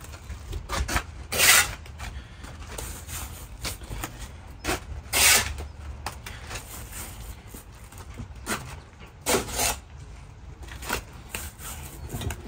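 Steel mason's trowel scraping wet mortar, scooping it from the mortar pan and spreading it along the top of concrete blocks. A series of short scraping strokes, the loudest about a second and a half, five seconds and nine seconds in.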